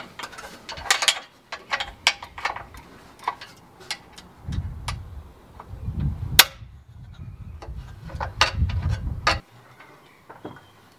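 Metal frame parts of a terrace-roof kit being fitted together by hand: a string of irregular light clicks and knocks. A low rumble runs through the middle and stops suddenly about nine seconds in.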